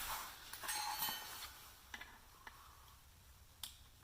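Small metal transmission parts being handled: a brief scraping rustle, then a few separate light clicks of metal on metal.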